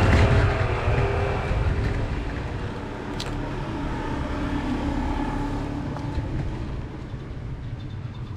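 A motor vehicle's engine passing close by on a street, loudest at the start and then slowly fading.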